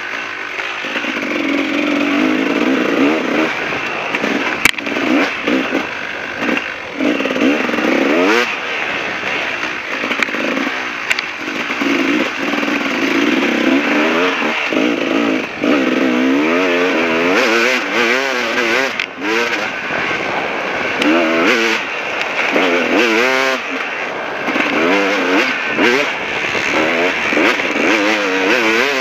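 KTM 380 two-stroke dirt bike engine revving hard under load on a muddy trail. Its pitch rises and falls again and again with throttle and gear changes, swinging fastest in the second half.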